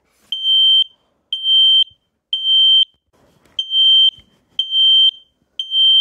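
Kidde KN-COSM-BA combination smoke and carbon monoxide alarm sounding for smoke: two groups of three loud, high-pitched beeps, each beep about half a second long. This is the three-beep temporal pattern that signals fire.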